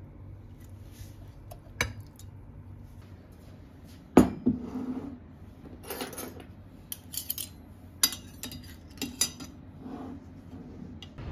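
Dishes and cutlery clinking and knocking: a scattered series of sharp clinks, some briefly ringing, with the loudest knock about four seconds in.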